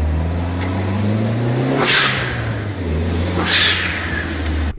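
A car engine running and revving, rising in pitch over the first second or so, with two loud whooshing sweeps about two and three and a half seconds in; it cuts off abruptly near the end.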